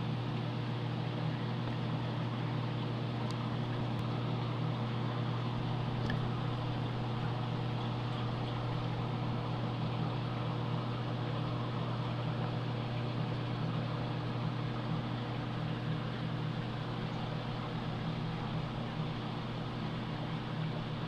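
Steady low hum with an even hiss: aquarium pumps and water circulation running.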